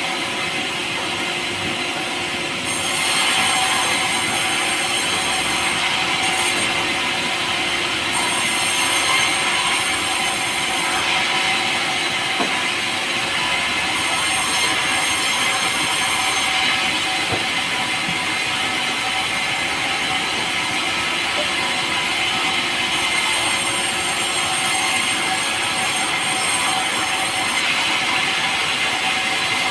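Power saw running steadily through a log of pulai, a light, soft timber.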